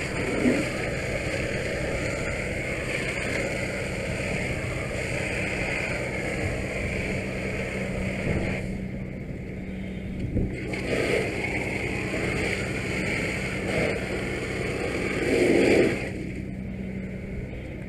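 Fire hose nozzle spraying water into a burning SUV, a steady hiss of water and steam that stops for about two seconds around nine seconds in and cuts off again about sixteen seconds in. A fire engine's pump hums steadily underneath.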